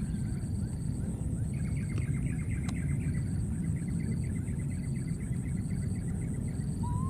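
Outdoor ambience: a steady low rumble under a high, steady drone, with short high chirps about every three-quarters of a second and a rapid trill of bird-like notes through the middle.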